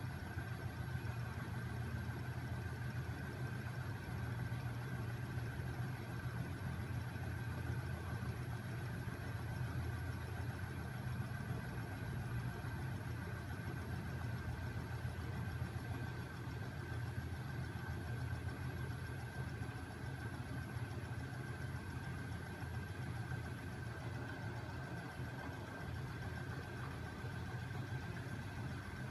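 Homemade magnet-crankshaft machine with a heavy flywheel running steadily, driven by a small 12 V electric motor: a continuous low mechanical hum and rattle with a steady high-pitched tone over it.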